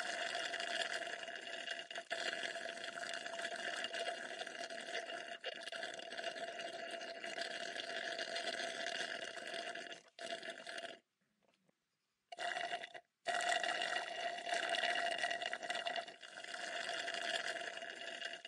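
Steady hiss of falling rain. It drops out for about a second a little past the middle, comes back, cuts out again very briefly, then runs on.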